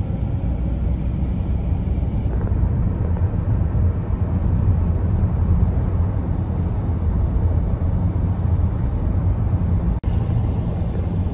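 Steady low rumble of road and engine noise heard from inside a moving car's cabin. It drops out for a moment about ten seconds in.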